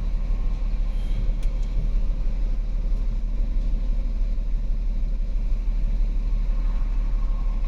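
A 2008 Volkswagen Passat 3.6-litre V6 engine idling as a steady low rumble. The engine runs rough because fuel rail pressure is too low (code P0087); the mechanic suspects it is running on low-side pressure only.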